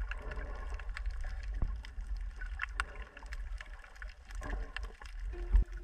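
Underwater ambience over a coral reef, recorded on a submerged camera: a steady low rumble of water moving against the microphone, with scattered short crackling clicks and a louder knock near the end.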